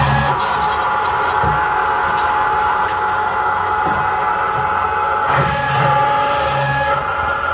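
Automatic cold saw running as it cuts a bundle of steel tubes into short spacers: a steady machine noise with a constant high ringing tone, broken by repeated low thuds and a few sharp clicks.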